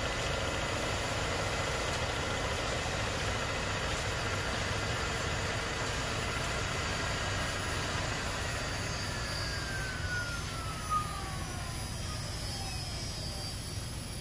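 Comec ACF200 head surfacing machine running, its cutter head and brush sweeping across a cylinder head deck as the table feeds, a steady mechanical whir. Over the last few seconds a whine falls steadily in pitch.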